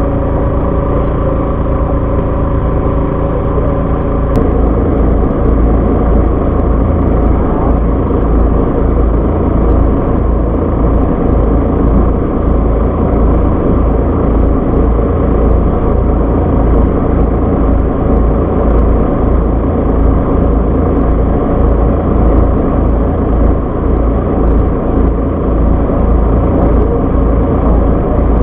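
Fishing boat's engine running, a loud steady low drone. About four seconds in, the even hum gives way to a rougher, noisier sound.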